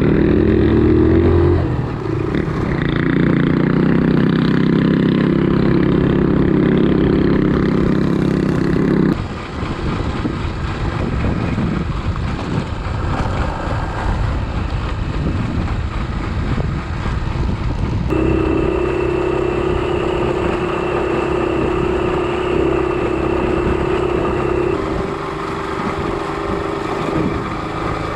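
Motorcycle engines running under way, with wind and road noise on the microphone. The engine note rises at the start, and the sound changes abruptly about nine seconds in and again about eighteen seconds in.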